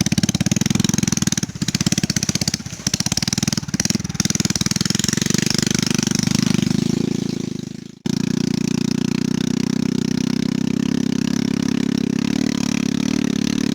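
Small motorcycle engine running while being ridden, noisy. It fades and cuts off abruptly about eight seconds in, then comes back running steadily.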